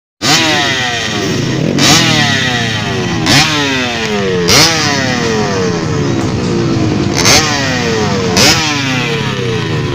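Two-stroke motocross bike engine being revved in place: the throttle is blipped about six times, each blip sending the pitch shooting up before it slides back down toward idle.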